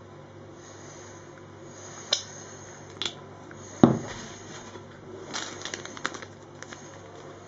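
Kitchen items handled on a countertop: two sharp clicks, then a heavier knock a little before four seconds in, as of a bottle or utensil set down, followed by a run of light clicks and rustling.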